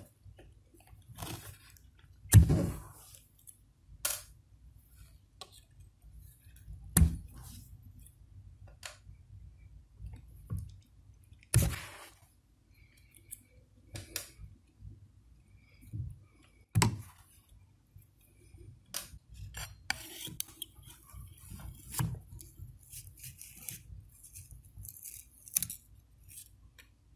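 Metal pliers working over the freshly routed circuit board and its wooden spoilboard: scattered sharp clicks and taps several seconds apart, with quieter scraping between them.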